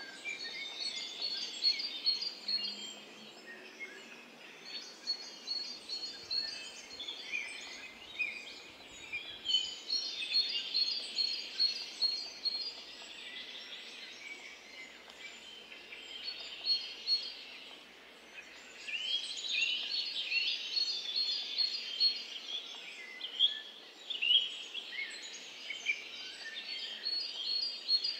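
Songbirds chirping and singing, many short calls and quick trills one after another over a faint steady hiss.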